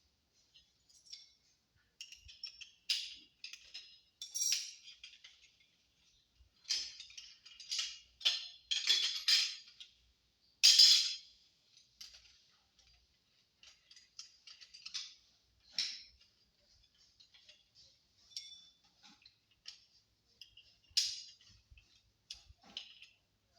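Small metal tools and parts being handled: scattered light clinks and rattles, with a louder clank about eleven seconds in and another near the end.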